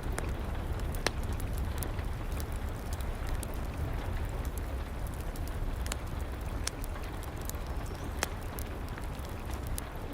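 Wood fire crackling with scattered sharp pops, the clearest about a second in and about eight seconds in, over a steady hiss of rain and a low rumble.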